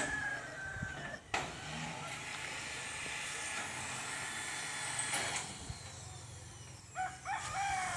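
Outdoor rural background with a steady hiss and a sharp click a little over a second in; near the end a rooster crows.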